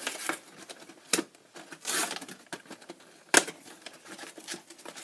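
Cardboard trading-card box and its plastic card tray being handled and pried open: scattered rustles and crinkles with sharp snaps about a second in and about three and a half seconds in, the second the loudest.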